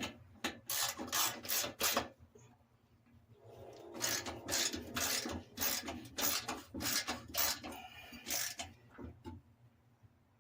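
A hand tool scraping metal with repeated rasping strokes: a short run of about five strokes, then a longer run of roughly two strokes a second.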